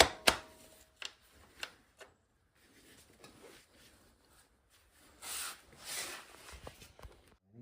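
Handling noises from work on the bike's front axle and brake bracket: a few sharp clicks and knocks in the first two seconds, the first with a brief ring, then two short rubbing or scraping sounds about five and six seconds in.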